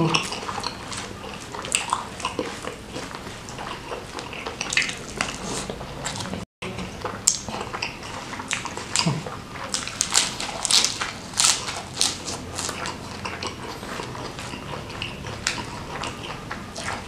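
Close-miked eating: cutlery clinking and scraping against a plate in many quick irregular clicks, mixed with chewing of rice and stir-fried sambal dishes.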